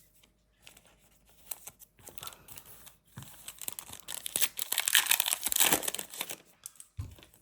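Foil trading-card pack wrapper being crinkled and torn open: light crackles at first, then a louder run of crinkling and tearing from about four seconds in, ending with a short low thump.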